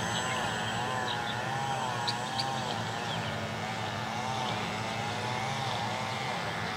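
Twin brushless outrunner motors and propellers of a small electric RC P-38 park flyer, throttled back on landing approach: a wavering drone over a steady low hum, with two light ticks about two seconds in.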